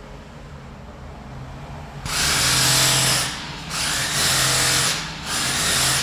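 Power drill run in three short bursts, starting about two seconds in, with brief pauses between them, over low construction-site background noise.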